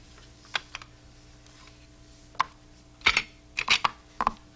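Letter tiles of a word game clicking as they are laid on the board: a few single clicks, then a quicker cluster of clicks in the second half.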